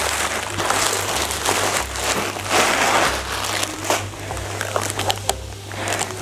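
Clear plastic packaging wrap crinkling and rustling as the spin-mop unit inside it is handled, with irregular crackles throughout, loudest a little before halfway.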